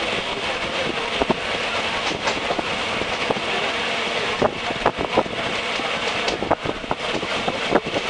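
Passenger train running, heard at a carriage window: a steady rumble and rush of air with irregular clacks and rattles from the wheels and carriage, the clacks coming thicker about halfway through.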